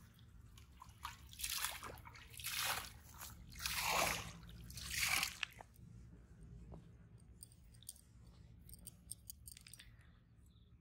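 Hands squeezing and rolling a ball of dough fishing bait: four swishing, squishy swells in quick succession, then a few faint clicks.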